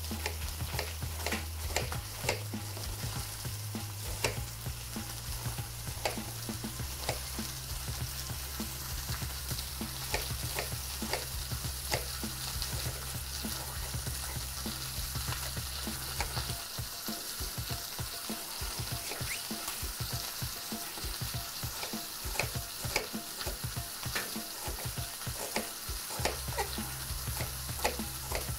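Lamb shoulder pieces sizzling steadily as they brown in hot oil in a pan, with a kitchen knife tapping sharply and irregularly on a cutting board as a red onion is sliced.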